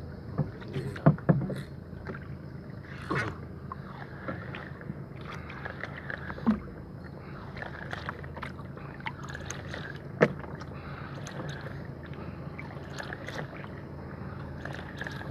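Sounds of handling gear on a small outrigger fishing boat at sea: scattered sharp knocks and clicks from a fishing rod and spinning reel over a steady low background, the loudest knocks about a second in and again about ten seconds in.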